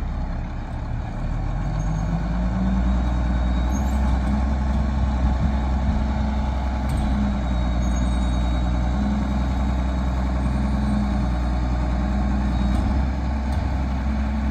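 Diesel garbage truck engine running. It grows louder about a second in, then holds a steady low drone as the trucks pull along the street.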